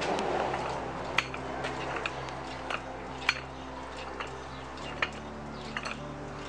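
Daytona 3-ton low-profile hydraulic floor jack being pumped up: sharp metallic clicks from the handle and pump linkage, roughly one every half second to a second, over a steady low hum.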